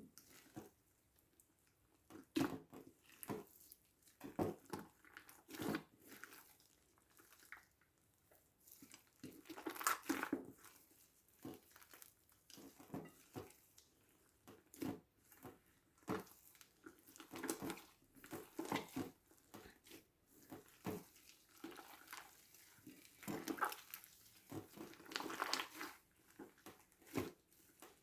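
Slime being squeezed and kneaded by hand, with irregular wet squelches and small crackling pops about one or two a second.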